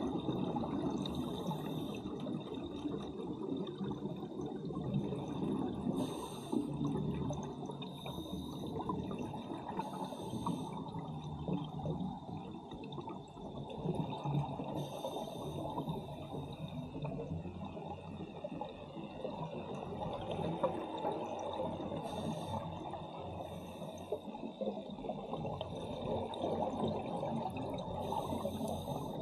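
Scuba diver breathing underwater: a continuous rumble and gurgle of exhaled bubbles, with short regulator hisses every few seconds, and a steady high-pitched whine under it.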